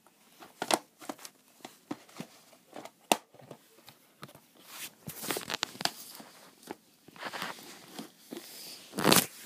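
Plastic DVD cases being handled and shuffled: scattered clicks and knocks with stretches of rustling, the loudest knock near the end.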